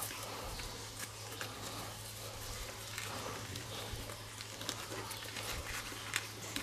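Light handling of a 1/6-scale action figure's cloth costume and backpack straps: soft rustling with a few small clicks, over a steady low hum.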